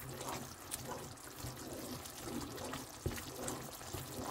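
A wine-and-onion sauce thickened with cornstarch bubbling quietly in a pan as it simmers and thickens, with a wooden spoon in it. A few faint ticks are heard, the clearest about three seconds in.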